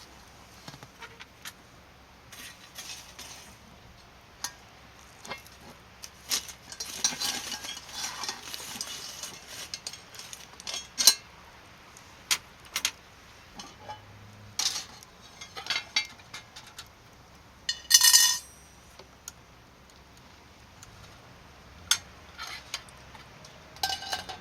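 Cooking utensils clicking and scraping against camp cookware, with a stretch of scraping and one loud ringing clink about three-quarters of the way through.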